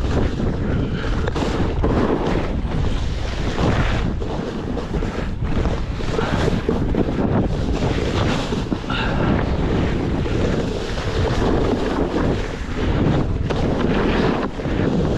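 Wind buffeting the microphone: a loud, steady rumbling rush that rises and falls without a break.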